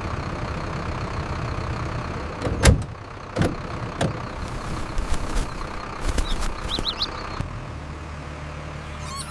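A vehicle engine running, with several heavy thumps like doors slamming a little over halfway in, then the engine settles into a steady low hum. A few short high squeaks sound shortly before the hum settles.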